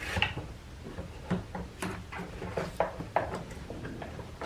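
Scattered light knocks, clicks and rubbing of plastic and rubber as a new air filter and its ribbed rubber intake duct are pushed back into the plastic airbox, over a faint low steady hum.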